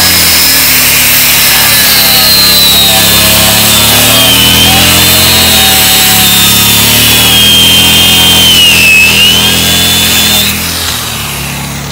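Angle grinder cutting into rusted steel on a truck, a loud steady grind with a high whine that sags in pitch twice as the disc bites harder. It stops near the end.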